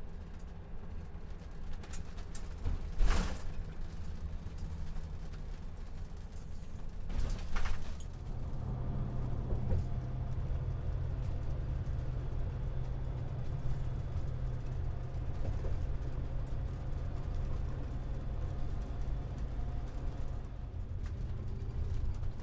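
Engine and road noise inside a moving motorhome's cab: a steady low drone, with two sharp knocks about three and seven and a half seconds in. A steadier engine hum takes over from about eight seconds in.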